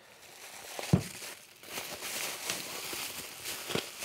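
Plastic packaging, bubble wrap and a clear bag, crinkling as it is pulled off a metal part. There is a sharp thump about a second in and a smaller knock near the end.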